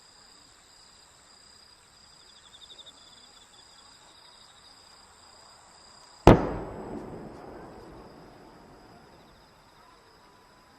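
One loud bang from a large aerial firework shell about six seconds in, followed by a long rolling echo that fades over a few seconds. Crickets chirp steadily underneath.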